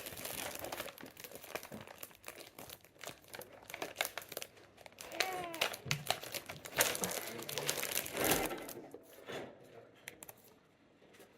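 Plastic bread wrapper crinkling and crackling in irregular bursts as it is handled and torn open.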